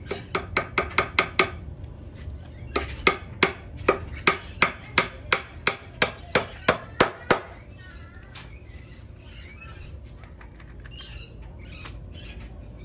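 Hammer driving nails into pallet-wood boards: a quick run of about eight taps, then after a short pause about a dozen blows at roughly three a second, stopping about seven seconds in.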